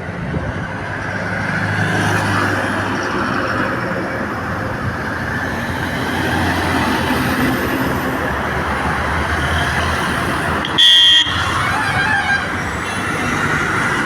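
Dense road traffic with vehicle engines running by, a low rumble swelling through most of the stretch, and one short, loud horn blast about eleven seconds in.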